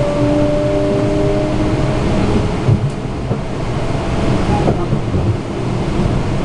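Metro-North commuter train running along the track, heard from on board: a steady rumble and rush. Over it a steady whine of a few tones fades out about two seconds in.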